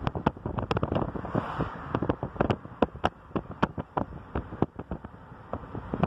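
Irregular crackles and bumps of wind and handling on a phone microphone, over the low rumble of a car.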